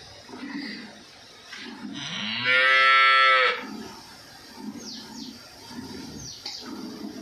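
A cow mooing once, a single call of about a second and a half starting around two seconds in, rising in pitch at the start and then held. Under it, faint rhythmic hissing squirts of milk from hand milking strike a steel pail.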